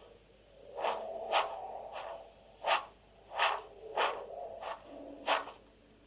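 Footsteps crunching in snow, about six steps at an uneven pace.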